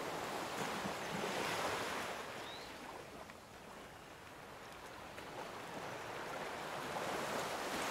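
Ocean waves washing in a soft, even hiss that swells, falls away about halfway through and builds again near the end.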